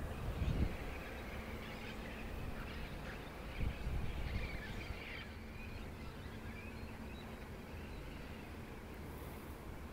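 Quiet outdoor background with faint bird chirps, a faint steady hum, and two low rumbling bumps, about half a second in and again near four seconds.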